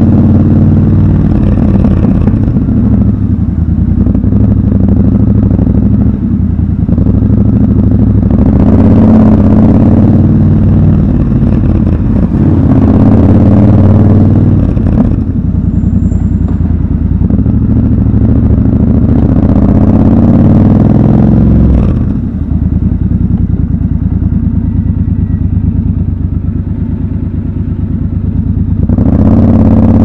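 Triumph Scrambler 1200 XC's 1200 cc parallel-twin engine at low speed, rising and easing off with the throttle several times inside an underground car park. About two-thirds of the way through it drops back and runs lower for several seconds, then picks up again near the end.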